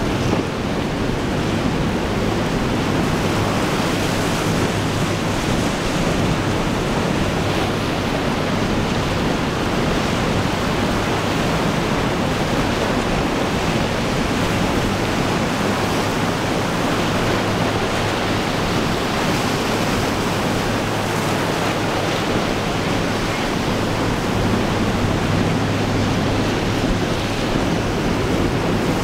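Steady wash of choppy sea waves and surf mixed with strong wind buffeting the microphone, with a faint low steady hum underneath.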